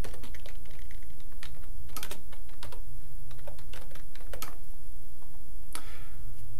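Typing on a computer keyboard: a quick run of key clicks for about four and a half seconds, then one more click near the end, over a steady low hum.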